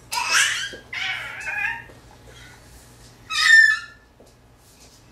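Toddler squealing in three high-pitched bursts; the last, a little past three seconds in, is the loudest.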